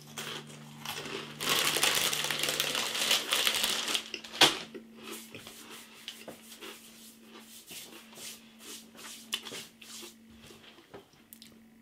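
Plastic snack bag crinkling and rustling as it is handled. The crinkling is densest for a couple of seconds near the start, followed by a sharp click and scattered lighter crackles.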